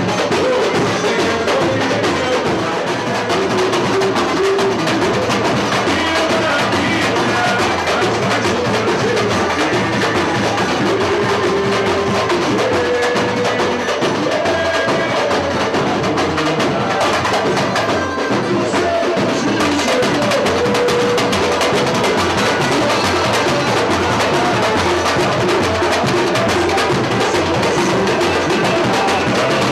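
Samba music with live percussion: dense, steady drumming with a pitched melody over it.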